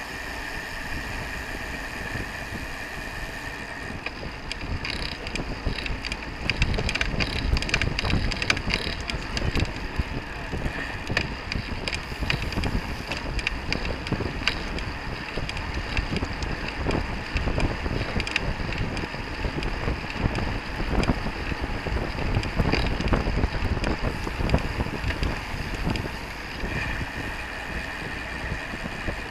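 Wind buffeting the microphone of a camera mounted on a road bike riding at speed in a race pack, with road and tyre noise and frequent short clicks and knocks through the middle.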